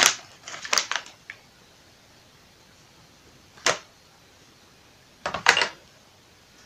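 Sharp clicks and taps from lace-making tools being handled: a quick cluster at the start, a single click near the middle, and another cluster about five and a half seconds in.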